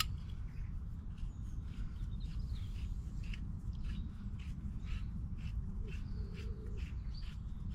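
Light, irregular clicks and ticks of hand work on a pipe and fitting, over a steady low background rumble with a few faint bird chirps.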